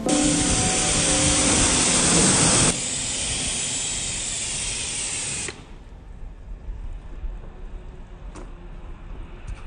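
Loud hissing spray, as from a jet during car washing. It steps down to a quieter hiss between edits and cuts off suddenly a little past halfway, leaving a few faint clicks.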